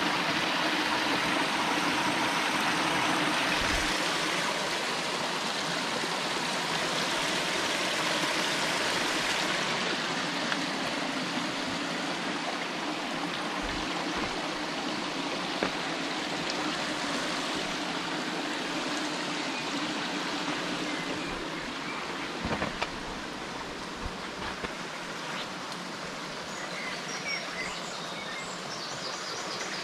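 A small mountain stream running over rocks and a little cascade: a steady rush of water, somewhat fainter after about ten seconds. A few dull knocks sound through it.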